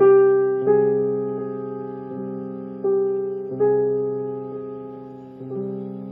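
Slow music of sustained piano-like keyboard chords, each struck and left to ring and fade. There are five chords, the first and two others the loudest.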